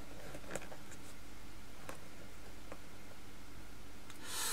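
Faint, sparse clicks of plastic model kit figures being handled and set down on a tabletop, over quiet room tone, with a soft breath near the end.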